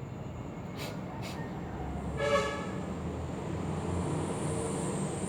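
A short vehicle horn toot about two seconds in, over a steady low rumble of traffic, with a couple of faint clicks before it.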